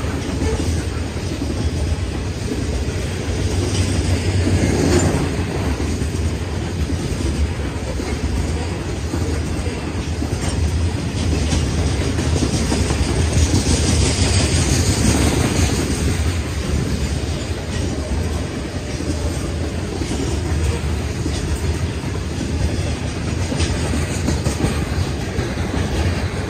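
Freight train of covered hopper cars rolling past close by: a steady rumble of steel wheels on rail with clickety-clack as the wheels pass over the rail joints.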